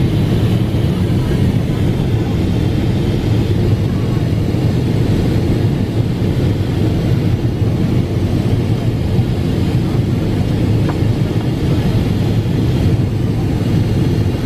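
Steady cabin noise inside a Boeing 777-300ER airliner in flight on descent: the even, deep rush of airflow and its GE90 turbofan engines.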